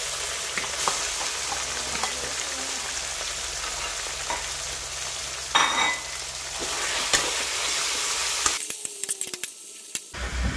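Sliced pork sizzling in hot garlic oil in a metal wok, stir-fried with a spatula that clicks and scrapes against the pan now and then. The sizzle dips briefly near the end.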